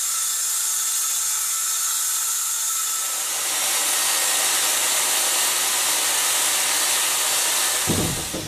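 Electric saws cutting HDPE plastic sheet: a circular saw, then a table saw, running in a steady hissing whine. The sound grows fuller and lower about three seconds in and stops abruptly near the end.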